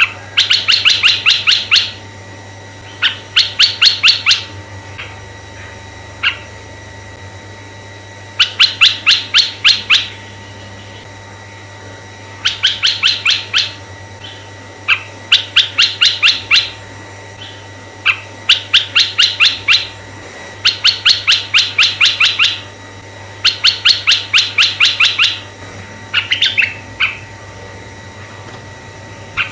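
Red-eyed bulbul song: about nine bursts of rapid repeated notes, each lasting a second or two and coming every few seconds, over a faint steady hum.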